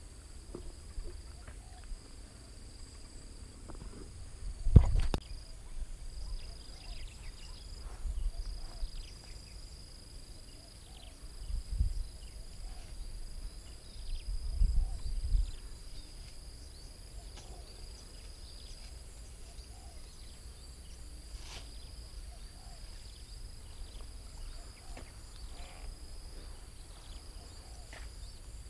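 Insects chirring steadily in a high, even tone, with scattered short chirps. A sharp knock about five seconds in is the loudest sound, and a few low rumbles come around the middle.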